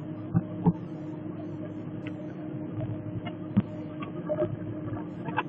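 Steady hum of a car driving, heard from inside the cabin, with a few light knocks: two about half a second in, and one a little past three seconds.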